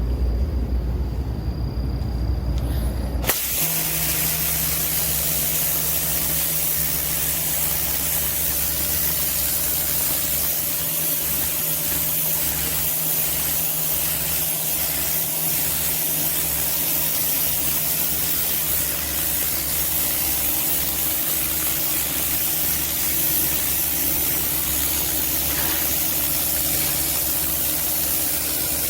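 A low rumble for the first few seconds, then a Karcher K 2 electric pressure washer comes on suddenly and runs steadily: a loud, dense spray hiss over the steady hum of its motor and pump.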